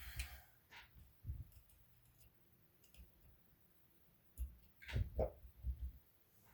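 Light clicks and small knocks from a paintball marker and hand tools being handled during disassembly, a few scattered at first and a busier run of them about four and a half to six seconds in.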